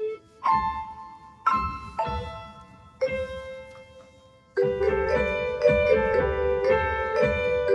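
Light instrumental background music led by piano: a few single struck notes ringing out, then a busier run of notes from about halfway through.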